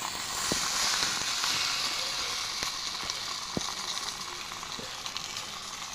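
Banana-leaf-wrapped chicken pathuri sizzling in a hot pan: a steady frying hiss, loudest in the first couple of seconds. A few light knocks come through it.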